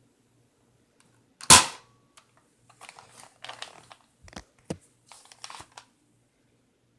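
Nerf Elite Firestrike foam dart blaster firing once with a sharp spring-plunger snap about a second and a half in, followed by a few seconds of small clicks and rattles as the blaster is handled and primed again.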